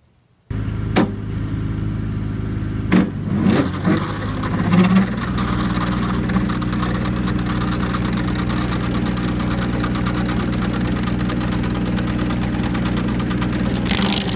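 The engine driving a stump grinder running, set to work for grinding a stump: it comes in suddenly, with a few knocks in the first seconds, changes pitch and settles to a steady run after about five seconds, and a rushing hiss rises near the end.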